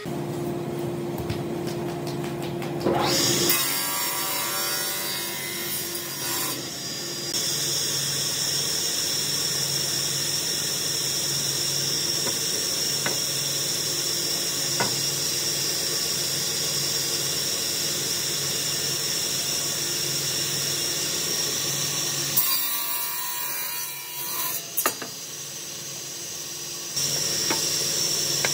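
Table saw ripping a long hardwood beam: the spinning circular blade cuts through the wood with a steady high whine over the motor. The cutting noise drops away for a few seconds late on, then starts again near the end.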